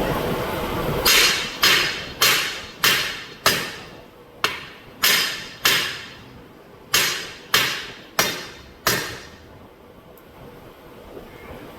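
A heavy hammer striking the steel split rim of a 1948 Ford F600 truck wheel, driving the rim ring into its seat. There are about a dozen sharp blows, each ringing briefly, in three runs spaced roughly half a second to a second apart.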